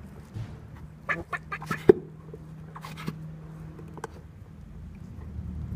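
Great Dane chewing a red rubber toy: a quick run of short clicks and squeaks between one and two seconds in, and a couple more around three and four seconds.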